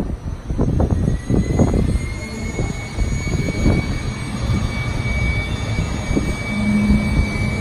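Jet engine whine from the model airport's sound effects for a model airliner on the runway: a thin whine begins about two seconds in and rises slowly in pitch over a steady low rumble. A few soft knocks come during the first two seconds.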